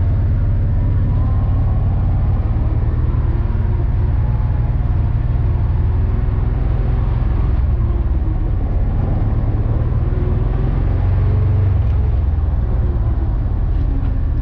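An ATV engine running steadily while riding, a continuous low drone with a light rush of trail and wind noise.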